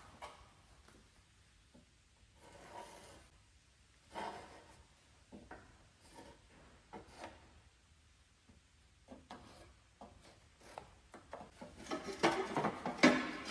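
Metal mower deck and patch piece being handled and shifted by hand: scattered light knocks and scrapes, with a louder run of scraping and knocking near the end.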